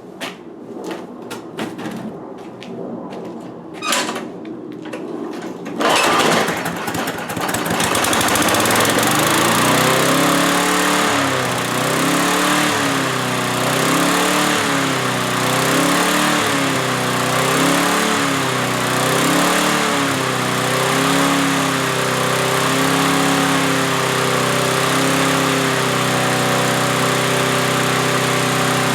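Briggs & Stratton Sprint single-cylinder four-stroke mower engine, pull-started about six seconds in after a few clicks, catching and running. Its speed surges up and down about every second and a half, then settles into a steady run near the end.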